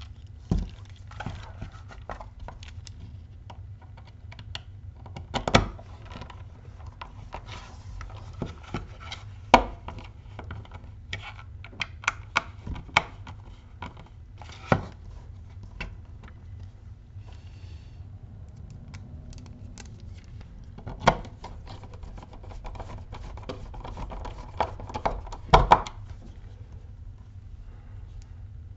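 Small hand screwdriver driving small screws into a 3D-printed plastic enclosure, with the plastic parts handled between screws: scattered irregular clicks and taps, a few louder knocks, over a steady low hum.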